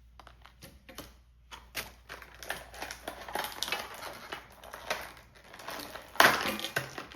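Small plastic toy parts and packaging handled close to the microphone: irregular light clicks and taps, with a louder rustling burst about six seconds in.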